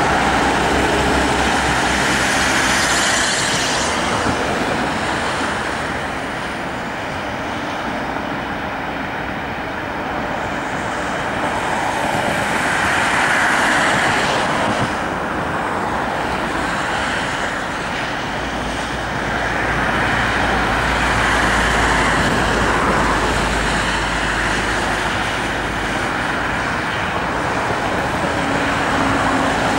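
Steady road traffic noise, swelling and fading every several seconds as vehicles pass, with a low rumble joining in about two-thirds of the way through.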